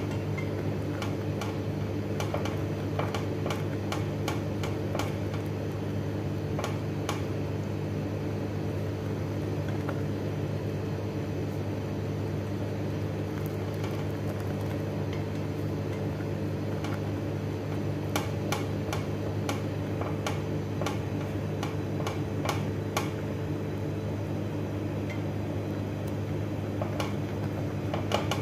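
A wire whisk stirring thick cheese sauce in a stainless steel saucepan, its wires ticking and tapping irregularly against the pan in clusters, over a steady low hum.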